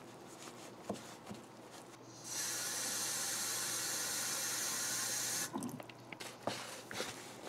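A thin stream of water pouring into a cut-off plastic gallon jug of powdered popcorn ceiling texture, a steady splashing hiss for about three seconds that stops suddenly. A few faint scrapes from the mixing stick come before and after it.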